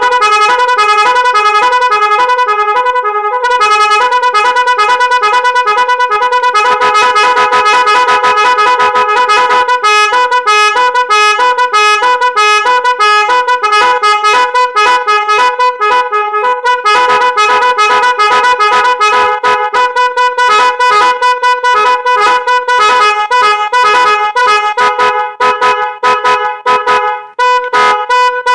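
Multi-tone musical 'magic horn', an electric vehicle horn, playing a fast run of loud horn notes that change several times a second, with a short break near the end.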